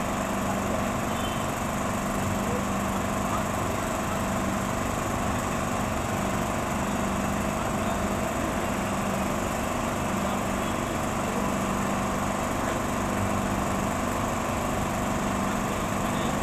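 A steady machine drone with a constant hum, like an engine running at an even speed.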